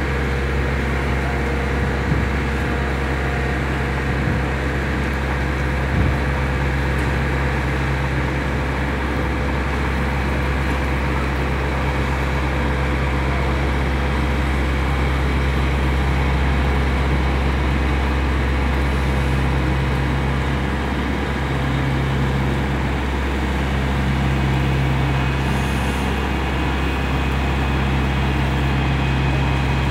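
Steady low drone of a heavy diesel engine running at low revs: a new Scania-chassis Marcopolo G7 1800 DD double-decker coach creeping along as it maneuvers.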